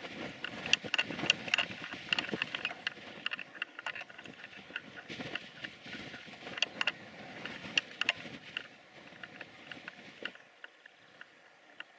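Steam locomotive standing at a distance and letting off steam, a low rumbling hiss, with many short high chirps and ticks scattered over it. The low rumble drops away about ten seconds in.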